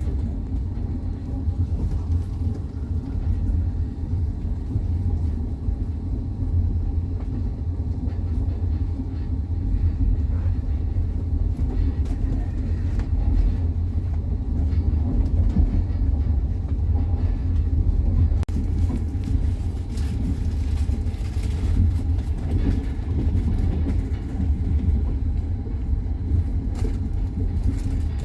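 Passenger train running along the track, heard from inside the carriage: a steady low rumble of the wheels on the rails, with faint clicks of the wheels over the rail joints.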